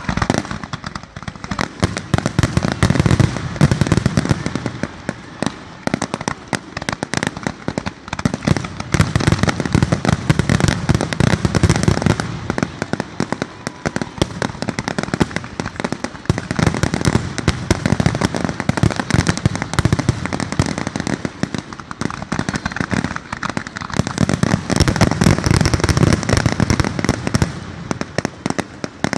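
Fireworks finale: a rapid, continuous barrage of bangs and crackles, with heavier booms swelling and easing in waves every several seconds.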